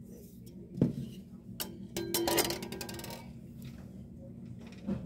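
A metal jelly mold being handled and hung back on a pegboard hook: a few light metallic clicks and clinks with a brief ring in the middle, between soft thumps, over a steady low hum.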